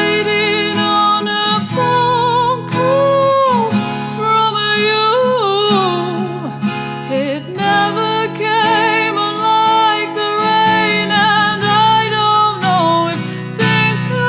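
Acoustic guitar playing under a singing voice that holds long, wavering notes with vibrato and slides between pitches, with no clear words.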